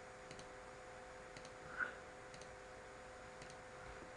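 Quiet room tone: a steady faint electrical hum, with faint ticks about once a second and one soft click a little before the two-second mark.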